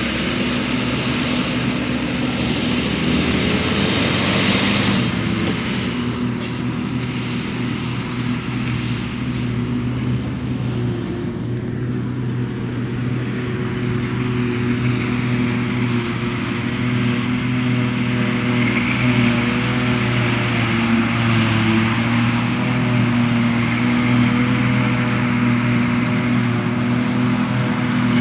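Large tractor diesel engine pulling a loaded silage wagon, running in a steady drone, with a forage harvester working alongside. The pitch rises and falls only slightly.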